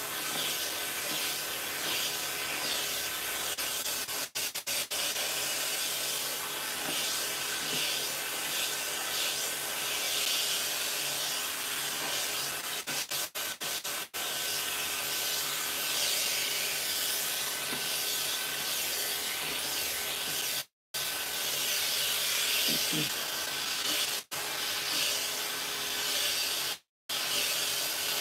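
Clipper vacuum system running steadily as it trims a Persian cat's fur: a constant airy rush from the vacuum with a thin steady whine from the clipper, using a number 10 blade and a number one comb. The sound cuts out completely for a moment twice near the end.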